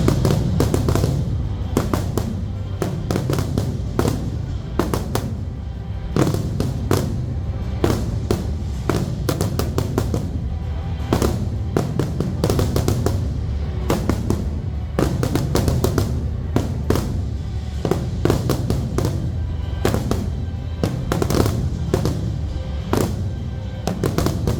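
Aerial fireworks shells bursting in quick, irregular succession, many sharp bangs and crackles, over a music soundtrack of a pyromusical display.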